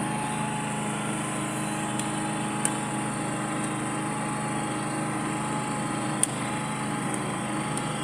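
Canopied 12 kVA gasoline generator running with a steady low hum and a faint high whine. Two sharp clicks stand out, a few seconds apart.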